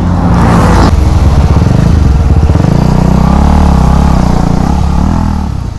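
KTM Duke 250's single-cylinder engine heard from the rider's seat at low revs. The revs drop about a third of the way in as the bike slows, then rise and fall a little, with wind noise on the camera.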